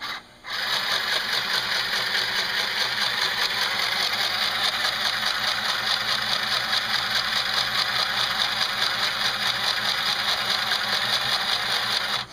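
Small budget sewing machine with all-plastic internal gears running steadily at speed, its needle stitching in a fast, even rhythm. It starts about half a second in and stops abruptly near the end.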